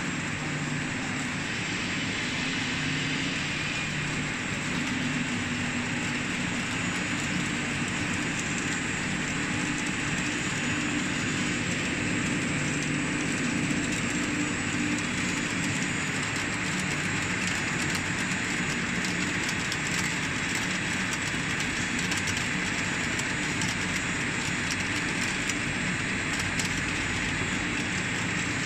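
Plastic modular-chain spiral conveyor running: a steady mechanical running noise of chain and drive, with a low hum that comes and goes.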